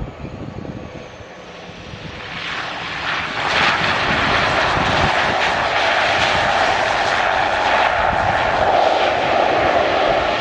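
Jet airliner's engines swelling to a loud, steady roar a few seconds in, as the aircraft passes close by.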